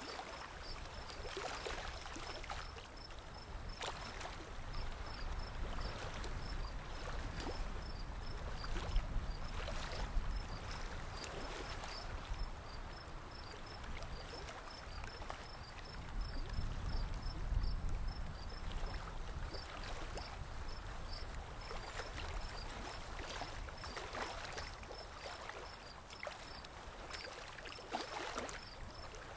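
Water sloshing and splashing against a small boat's hull as it moves slowly along the river, with a low rumble under it. A faint high chirp repeats steadily throughout.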